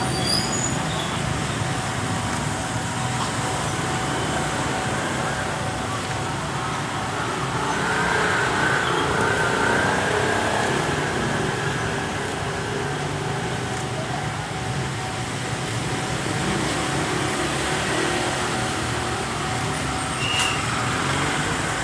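Steady road traffic noise of vehicles running by, swelling a little about a third of the way in.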